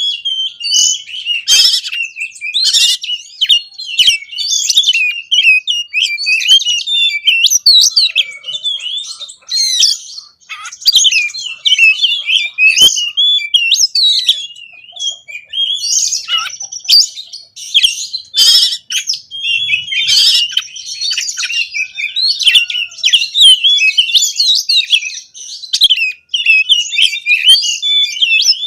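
Oriental magpie-robin (kacer) singing without pause, a fast, varied warble of whistles and chattering phrases broken now and then by short harsh rasping notes.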